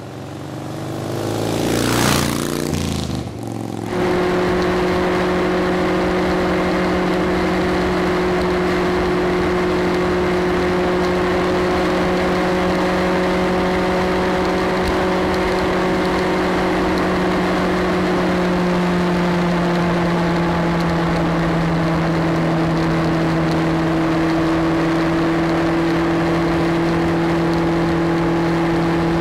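A short intro sound effect swells for about two seconds, then cuts to the steady drone of a motorcycle engine cruising at constant speed, with wind and road noise. The engine note dips slightly about two-thirds of the way through.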